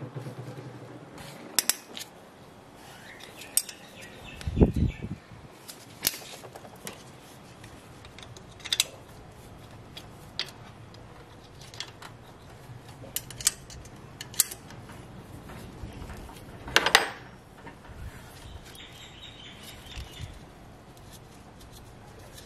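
Irregular metallic clicks and clinks of a hand wrench working the water pump's 10 mm mounting bolts, with a louder knock about five seconds in and another near seventeen seconds.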